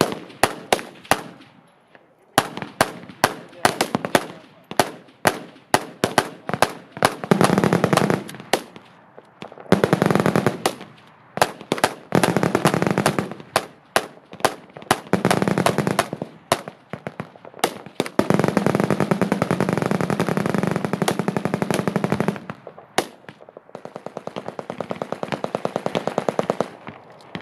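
Machine guns firing on a range: scattered single shots and short strings at first, then automatic bursts of a second or so each, and one long sustained burst of about four seconds past the middle. Near the end comes a fast, even run of shots.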